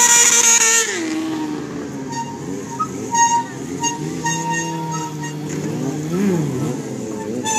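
Stunt sport-bike engine held at high revs, falling away about a second in, then running lower and being blipped up and down as the rider works the bike through wheelies and circles.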